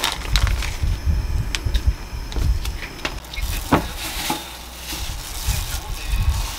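Cooking sounds: noodles going into a pot of boiling water with scattered clicks, then a rustling as shredded vegetables are tossed by hand in a glass bowl and noodles are tipped in from a strainer. Low handling thumps run throughout.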